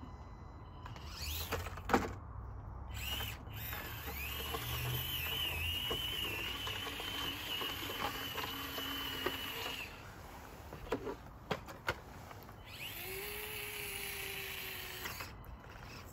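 Axial SCX24 mini RC crawler's small electric motor and gears whining as it drives, in a long spell with a wavering pitch, then a shorter one after a pause. A few sharp knocks as the truck's tyres and chassis bump over scrap pallet wood, the loudest about two seconds in and three more in the pause.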